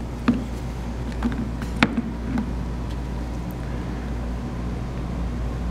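Steady low hum with a few light clicks and knocks from a metal probe and a plastic brain model being handled; the sharpest click comes about two seconds in.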